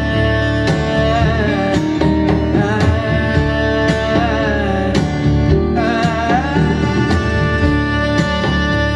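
Country-style song with a singing voice, guitar and a steady beat, played through a 1978 Pioneer SX-780 stereo receiver and its speakers.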